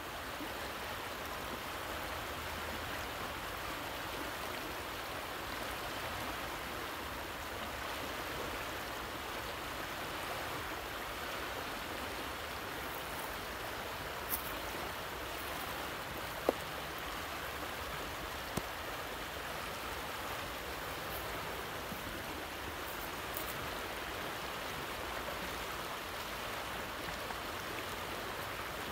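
Fast river current rushing steadily past the bank, with three brief faint ticks partway through.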